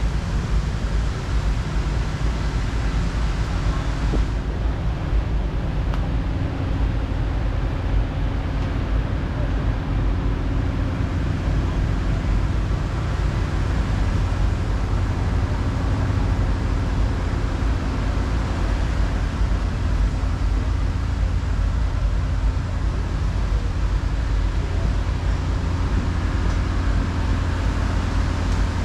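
Steady low rumble of fire engines running their pumps to throw water jets.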